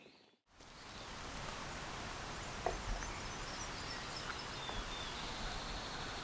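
Woodland ambience: a steady outdoor background hiss with faint, distant small-bird chirps in the middle and a short high, thin trill near the end.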